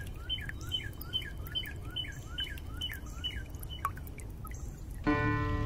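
A bird calling over and over, a short chirping phrase a little over twice a second, over a low steady rumble. The calls stop after about three and a half seconds, and soft sustained music comes in near the end.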